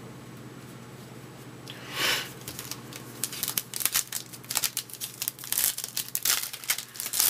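A trading-card pack's wrapper being torn open about two seconds in, then crinkling rapidly as it is pulled apart.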